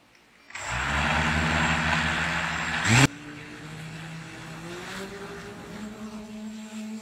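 MJX Bugs 3 quadcopter's brushless motors spinning up about half a second in and running with a steady whir. Near the three-second mark they rev with a quick rising pitch and then drop away abruptly, leaving a quieter hum that slowly rises in pitch.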